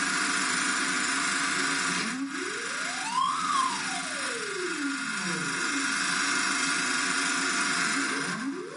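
Electronic noise music: a steady hiss with a pure tone that glides slowly up and then back down about two seconds in, and a new rising glide that starts near the end.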